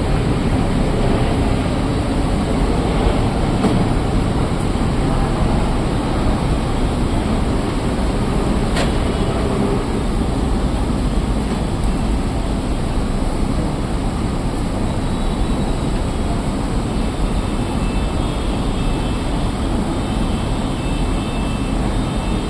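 Repaired cassette air conditioner running and cooling: a steady rushing noise of moving air, with a single sharp click about nine seconds in.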